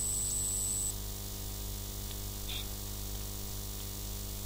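Steady electrical mains hum with even background hiss from the recording chain. A thin high whine cuts off about a second in.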